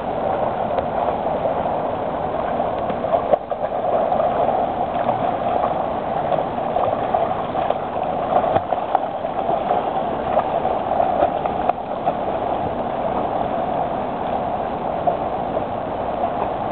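Steady water noise of an indoor swimming pool, with splashing from a swimmer's freestyle strokes and short splashes standing out now and then.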